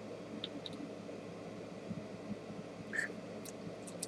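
Quiet room tone with a steady low hum, broken by a few faint small clicks and taps.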